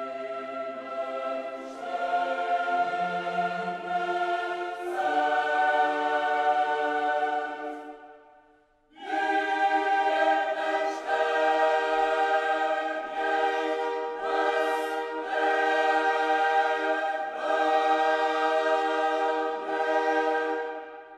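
Background music: a choir singing long held chords that change every few seconds, breaking off briefly about eight seconds in and coming back in full.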